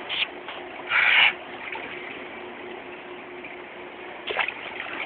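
Water splashing and sloshing around a swimming dog, with one louder splash about a second in and a sharp knock near the end.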